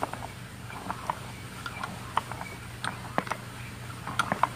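Homemade composting toilet mixer, a metal crossbar on a shaft, turning through dry fibrous composting medium in the bucket: irregular light clicks and scratches as the bar stirs the material.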